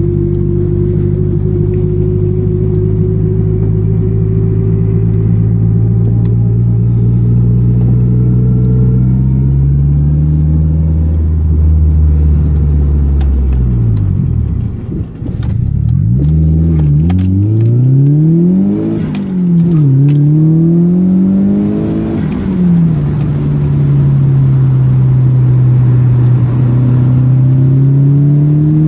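Nissan Silvia PS13's turbocharged SR20DET four-cylinder, heard from inside the cabin. It runs at a steady cruising drone, then from about halfway through the revs climb and drop sharply several times in quick succession through gear changes. Near the end it settles back to a steady drone.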